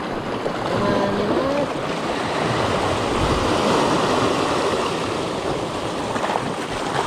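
Sea waves breaking and washing over rocks on a rocky shore: a steady rush of surf that swells and eases.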